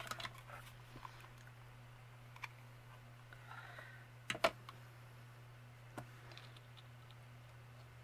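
Light scattered clicks and taps of cardstock craft pieces being handled and pressed down on a cutting mat, with a sharper pair of clicks about four and a half seconds in.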